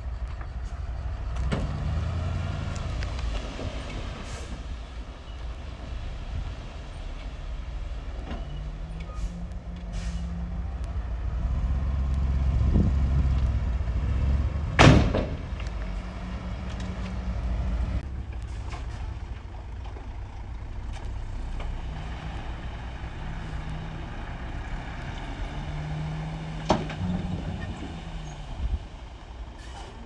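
Diesel dump truck engines running, revving up and down at times, with one short, sharp, loud burst about halfway through and a smaller one near the end.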